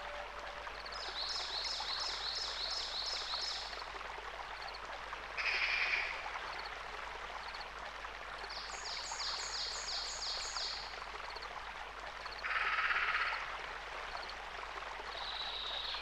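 Songbird calls over a steady rushing background: two runs of six or seven evenly repeated high notes, about 1 s in and again about 9 s in, with a short high burst between them and a lower, noisy burst near the end.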